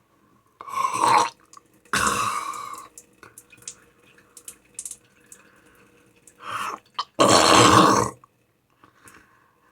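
A person making funny gurgling, burp-like noises in four short bursts, with faint clicks between.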